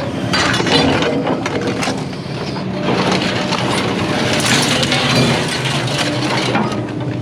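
Scrap metal being unloaded by hand: a continuous jumble of clattering, scraping and knocking metal pieces. A steady engine hum runs underneath.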